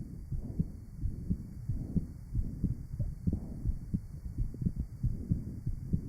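Heart sounds from a patient with rheumatic mitral valve disease, recorded by a chest microphone over the aortic area. Low thuds come in a steady rhythm, about every two-thirds of a second, with a low murmur-like noise filling the gaps between beats.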